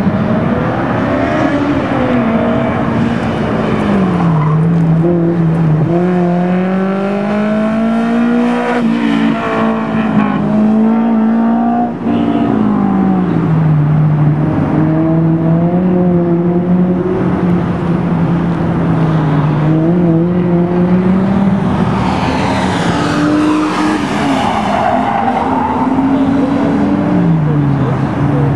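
A car's engine driven hard through an autocross course, its pitch repeatedly climbing under acceleration and dropping back on lifts and shifts. Tires squeal in the corners, most strongly about three-quarters of the way through.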